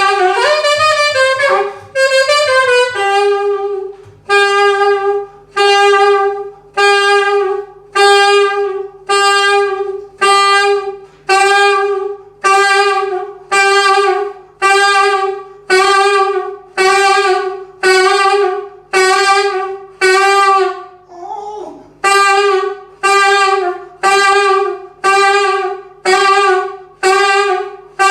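Saxophone playing jazz: a few moving notes at first, then the same note repeated over and over, about one and a half times a second, with one short break about three-quarters of the way through.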